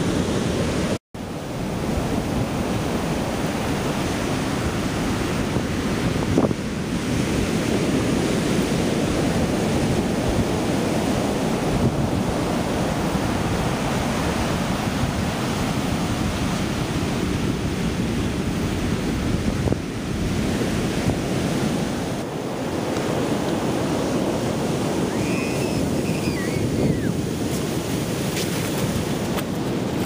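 Pacific Ocean surf breaking and washing up the beach in a steady rush, with wind buffeting the microphone. The sound cuts out for a split second about a second in.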